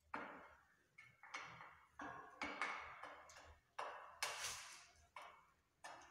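Footsteps: about a dozen sharp, irregular taps, each briefly ringing out in a bare tiled room.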